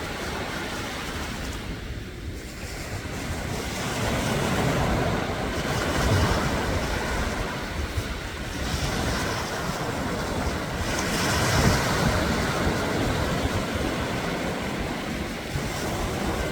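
Sea waves breaking and washing up the shore in slow swells, with wind buffeting the microphone.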